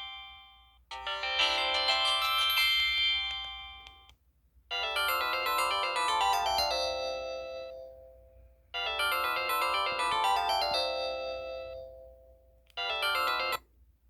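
Pantech SKY IM-5400 Extra mobile phone playing its built-in synthesized sound effects, a string of short chiming jingles. A brief jingle comes about a second in, then a longer one with a run of notes falling in pitch plays twice in a row, and a short one sounds near the end.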